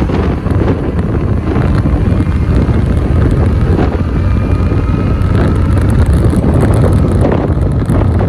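Wind buffeting the microphone of a rider on the move, loud and steady, over the low drone of a motor scooter's engine and tyres on the road.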